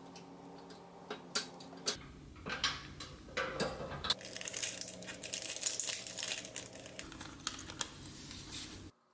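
Light metal clicks and taps of a wire dump lever being worked into a pressed-steel toy dump truck's body, with the rustle of gloved hands. A papery rustle follows near the end.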